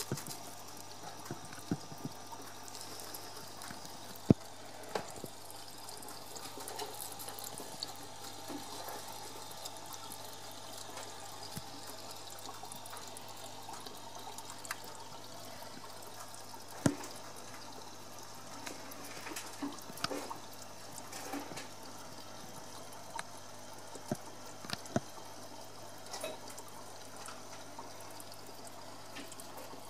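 Aquarium water trickling steadily, over a faint low hum, with scattered short clicks, the loudest about four seconds in and again near the middle.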